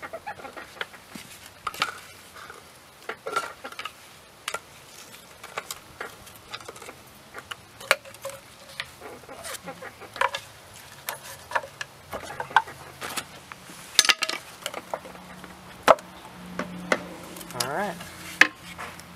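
Irregular metallic clicks, taps and scrapes of hand tools and loose parts as the silicone-sealed timing cover is worked off a GM 3800 V6 engine.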